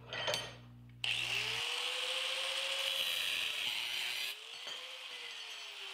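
Angle grinder with a cutoff wheel cutting through the steel handle bar of a forged billet held in a vise. After a brief clatter it starts about a second in: a loud, high grinding hiss over the motor's whine, which sags and recovers as the wheel is loaded. The cutting noise drops noticeably about four seconds in while the grinder keeps running.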